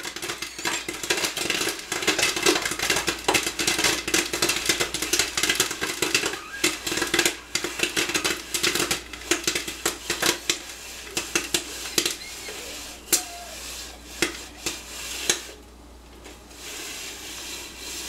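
Popcorn popping inside a Whirley Pop aluminium stovetop popper as its hand crank is turned, the stirring gear and kernels rattling in the pot. Fast, dense popping thins to a few scattered pops after about twelve seconds as the batch finishes.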